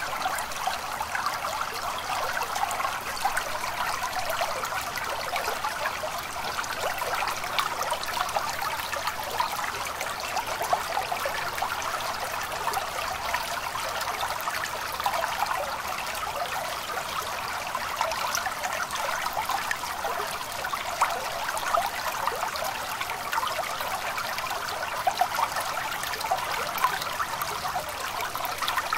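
A small stream babbling steadily: water trickling and splashing without a break.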